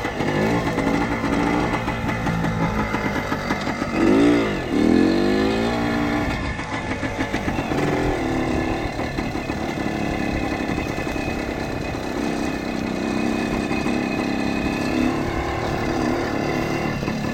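1976 Kawasaki KT250 trials bike's two-stroke single-cylinder engine running under riding, with the revs rising and falling. There is a quick burst of revs about four seconds in.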